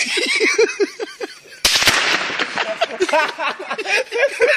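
A single rifle shot cracks about one and a half seconds in, with a long echo trailing off after it, the sniper firing at the decoy held up on a stick. Men snicker and chuckle before and after the shot.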